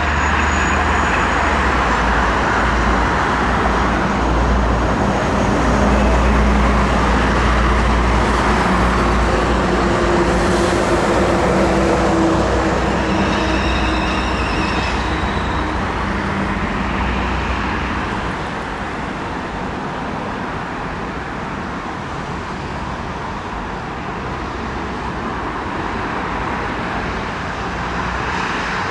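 Train running through the station: a heavy low rumble with a brief high whine about halfway through, easing off after about eighteen seconds.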